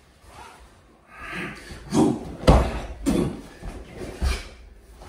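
Several dull thumps with scuffling, as bodies and feet hit and shift on a padded training mat while two people get up from the floor and reset into a hold.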